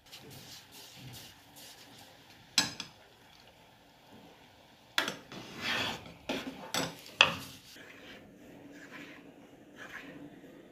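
A steel ladle stirring dal in a stainless steel pot, scraping against the pot, with a sharp clink about two and a half seconds in and a run of scraping and metal knocks between about five and seven seconds in.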